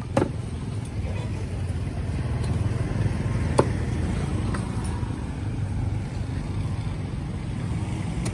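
Steady low rumble of road traffic, with two sharp knocks, one just after the start and another a few seconds later.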